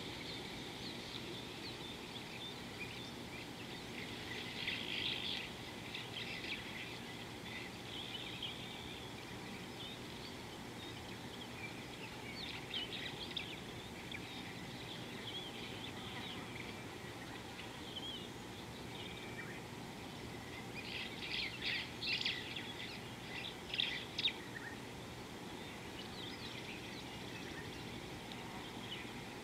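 Birds calling in scattered bursts of short, high chirps over a steady background hiss, the busiest bursts about two-thirds of the way through.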